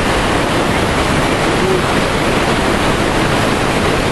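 Whitewater rapids of an artificial slalom course rushing steadily and loudly.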